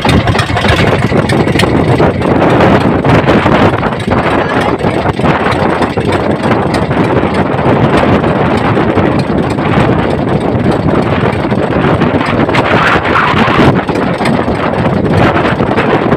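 Strong wind buffeting the microphone over the steady rush of rough sea around a small outrigger fishing boat.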